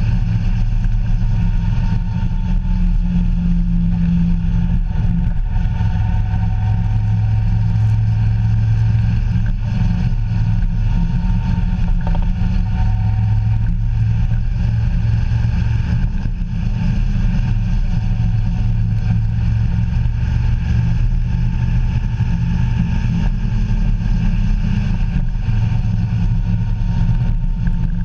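Motorcycle engine running at a steady cruise, its pitch shifting a little with the throttle, with wind noise over it.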